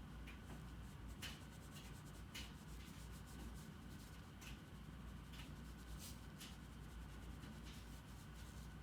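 Drawing tool scratching on paper in short, irregular strokes, over a faint steady low hum.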